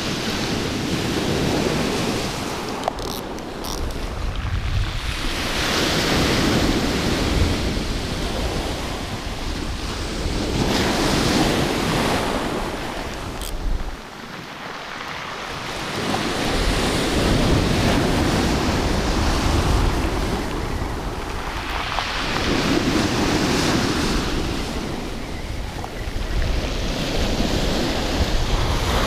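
Rough sea surf breaking and washing up the beach, swelling and fading in waves every five or six seconds. Wind buffets the microphone with a low rumble.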